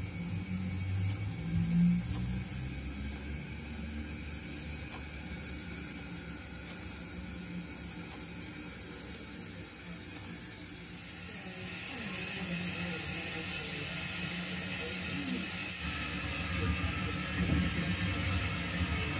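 O gauge model steam tank locomotive running slowly: a steady steam hiss over a low running rumble. The sound changes abruptly about three-quarters of the way through.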